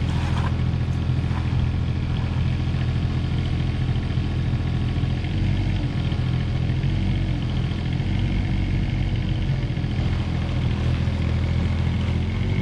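Komatsu PC16 mini excavator's diesel engine running steadily under a working load.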